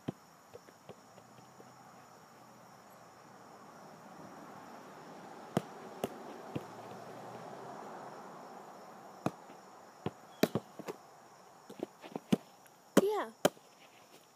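A soccer ball being kicked, juggled and trapped on grass: sharp thuds of foot on ball, a few at first and many in quick succession in the second half. A steady high drone of insects runs underneath, a soft rushing sound swells and fades in the middle, and a brief pitched sound comes near the end.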